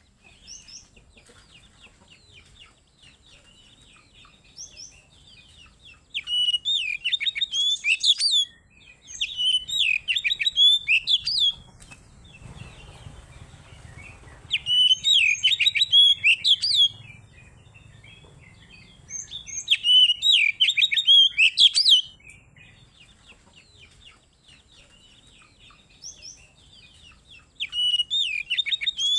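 Oriental magpie-robin (kacer) singing a loud, clear challenge song that calls out a rival: five bursts of rapid, high, sweeping notes, each two to three seconds long, with softer twittering between them.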